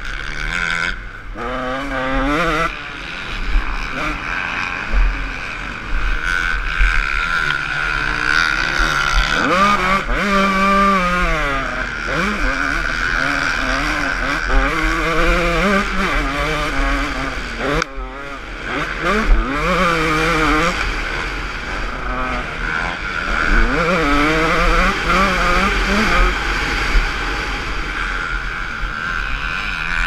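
Motocross dirt bike engine heard from on board, revving up and dropping back over and over as the rider accelerates and eases off around the track, with wind rumble on the microphone.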